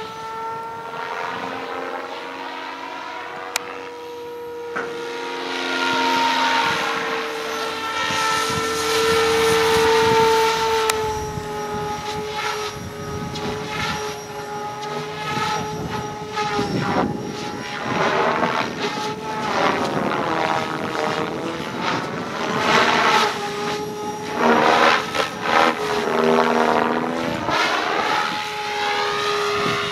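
Electric Goblin Urukay RC helicopter in flight: a steady whine from the motor and main rotor, with the swish of the blades. The sound rises and falls in swells as the helicopter manoeuvres, most strongly in the second half.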